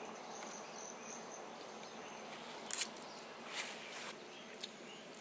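Quiet outdoor ambience with a faint, thin, high insect sound through the first half. Over it come three light clicks of a fork and knife against a plate as fish is cut.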